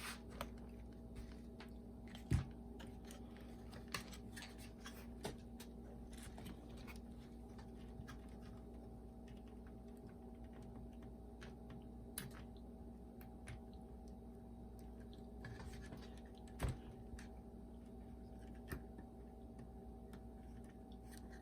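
Scattered small clicks and taps of hands handling parts inside an opened boombox, over a faint steady hum. The louder clicks come a little over two seconds in and again about three-quarters of the way through.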